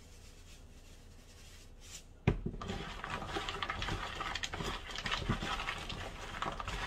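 Raw broccoli florets and carrot pieces tossed and rubbed by hand in a plastic bowl, a continuous rustling clatter. It starts a little over two seconds in, right after a single sharp knock.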